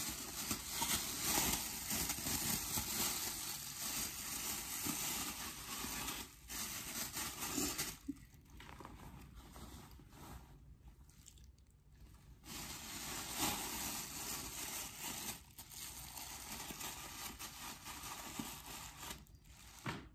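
Clear plastic shower cap crinkling and rustling as it is pulled over hair and adjusted. There is a quieter pause about eight seconds in, then the rustling picks up again.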